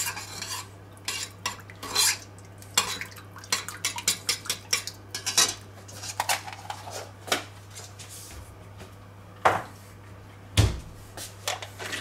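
A metal spoon stirring in a stainless steel saucepan, clinking and scraping against the pan in irregular clicks, with a few louder knocks near the end. A low steady hum runs underneath.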